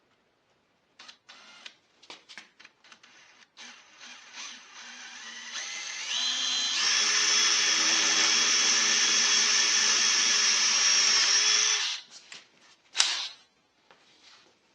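Power drill boring a lubricated pilot hole into the steel of a safe door, ahead of tapping it for screws. After a few light clicks the drill builds up over a few seconds, runs steadily with a high whine, and stops suddenly about twelve seconds in. A sharp click follows about a second later.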